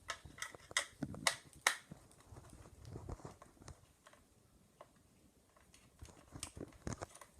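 Small parts of a fire alarm and pull station being handled while the black wire is fitted to its terminal: a quick run of about five sharp clicks in the first two seconds, then faint handling noise and a few light ticks near the end.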